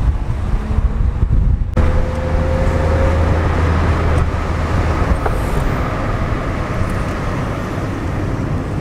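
Car engine and tyre noise heard from inside a moving taxi's cabin: a steady low rumble, with a faint rising whine about two seconds in.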